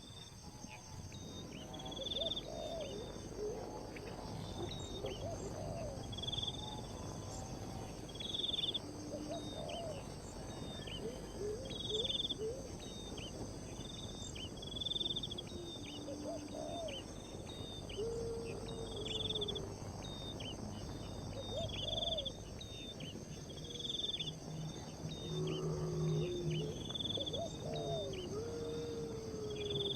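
Outdoor insect chorus: a steady high drone of insects, with short chirps repeating about once a second and scattered lower calls now and then.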